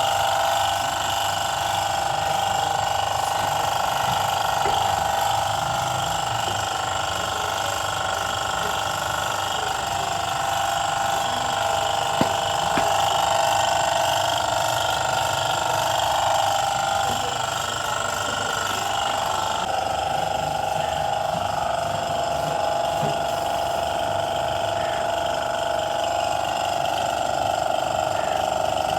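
A machine's motor running steadily with a constant whine, its pitch stepping to a new, steadier tone about two-thirds of the way through.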